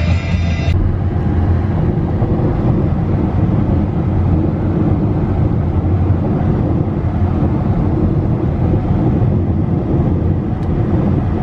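Steady road and engine noise of a car at freeway speed heard from inside the cabin, a constant low rumble. A brief burst of music at the start cuts off suddenly under a second in.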